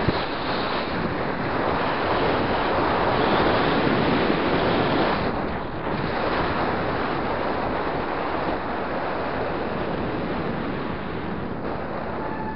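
Wind rushing over the microphone of a camera riding on a moving road bike: a steady rush of noise that swells in the middle and dips briefly about halfway through.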